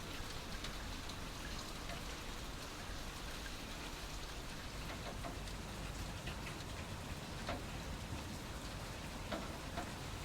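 Faint, steady rain-like hiss with scattered small ticks like drops.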